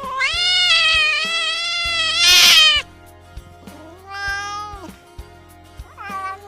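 A cat meowing: one long, drawn-out meow that grows louder and harsher at its end, then two shorter meows, over soft background music.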